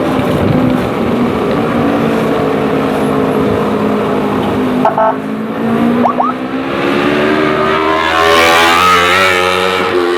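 Motorcycle engine running under way with wind rush, its pitch rising as it accelerates in the second half, the rush loudest near the end.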